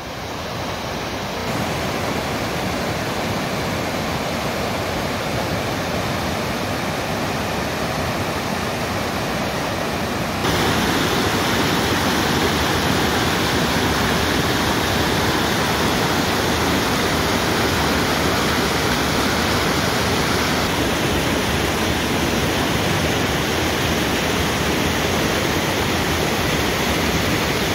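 Alpine mountain stream rushing over rocks, a steady wash of water noise that steps up louder about ten seconds in.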